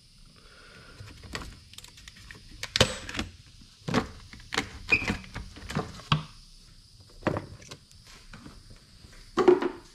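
Plastic air cleaner box of a Honda Civic being unclipped and opened by hand: a string of irregular clicks, knocks and clatters from its clips and lid as the air filter element is lifted out.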